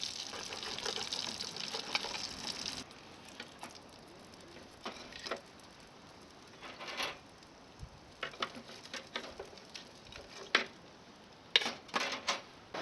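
Oil sizzling as small horse mackerel deep-fry, stopping abruptly about three seconds in. After that it is quieter, with scattered light clicks and taps.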